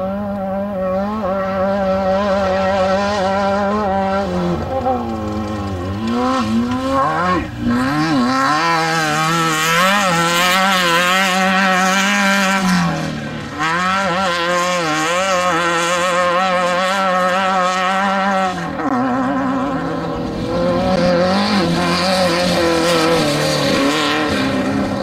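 Off-road desert race vehicle engine running hard, its pitch rising and falling repeatedly as the throttle is worked, with steadier stretches between.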